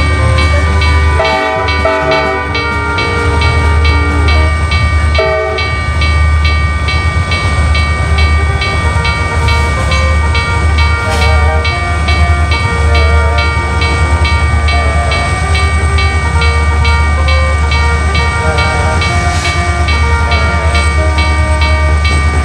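Cartoon railroad-crossing sound effects: a crossing bell ringing in a fast, even beat over the low rumble of a passing train. Long steady horn-like tones are held throughout, and short tune-like notes shift above them.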